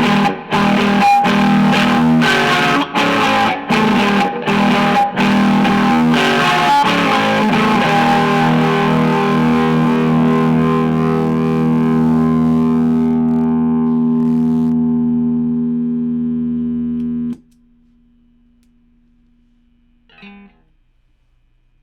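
Distorted electric guitar played in short, choppy chords, then a final chord left to ring for about ten seconds, slowly fading until it is cut off suddenly. Afterwards only a faint low hum remains, with a small click a few seconds later.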